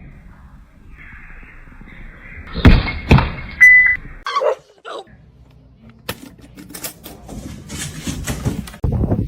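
A dog barking a few times, along with some thumps and clicks.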